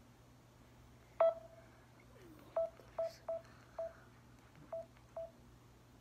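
Samsung Galaxy J3 Orbit smartphone giving seven short beeps at one pitch, irregularly spaced, the first the loudest and starting with a click.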